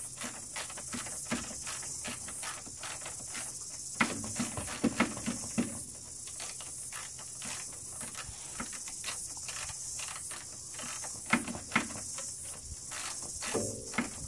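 Small irregular clicks and taps of bolts and hand tools on metal and plastic as the radiator fan cowl is bolted back onto a 2013 Yamaha Viking, with a few louder knocks about four to six seconds in and again about eleven seconds in, over a steady high hiss.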